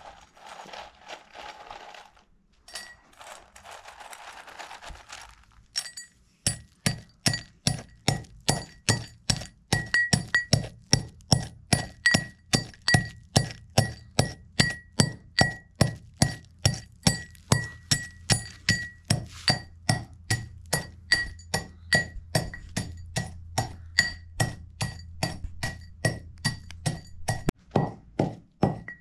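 Kitchen utensil clinking against a hard bowl-like vessel in a steady rhythm, two to three strikes a second, each strike ringing briefly at the same pitch, as ingredients are beaten or pounded for sweet bread. It is preceded by two short stretches of soft rustling.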